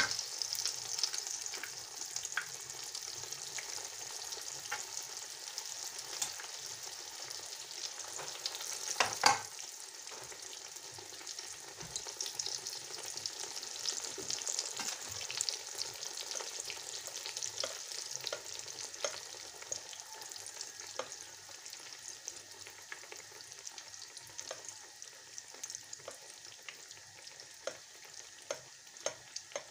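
Pişi, dough pockets filled with white cheese, sizzling and crackling as they deep-fry in hot oil in a pan. There is a single louder knock about nine seconds in, and towards the end the steady sizzle thins into more separate pops.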